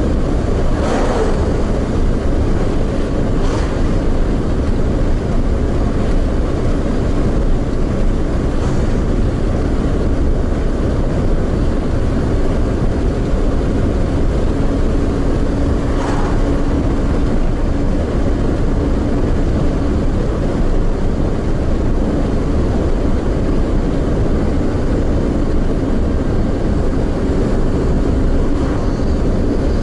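Car driving on the road: a steady low rumble of tyres and engine, with a few brief whooshes, the clearest about a second in and about sixteen seconds in.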